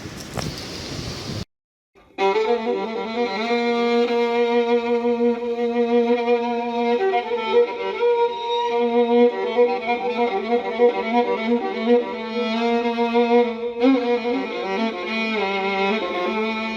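A brief rush of wind-like noise cuts off, and after a moment of silence violin music begins about two seconds in, playing long sustained notes.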